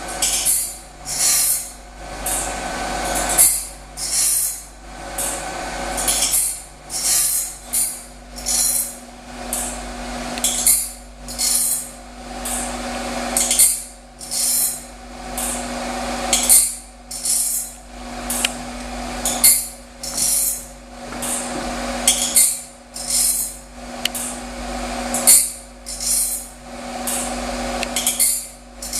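Sawmill machinery running: a steady hum with a rapid series of short, sharp, high-pitched bursts, roughly one a second.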